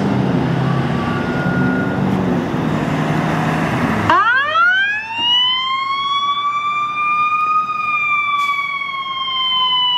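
Ambulance engine running as it pulls out, then about four seconds in its electronic siren starts a wail, rising quickly to its top pitch and then slowly falling.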